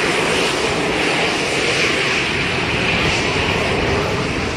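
Twin rear-mounted turbofan engines of a Gulfstream business jet running as it taxis: a loud, steady rush of jet noise.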